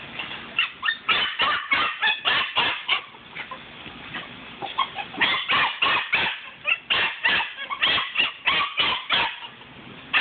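Eight-week-old Belgian Malinois puppy barking in quick runs of short yips, one run about half a second in and a longer one from about five seconds in, the excited barking of a puppy in prey drive at a tug rag.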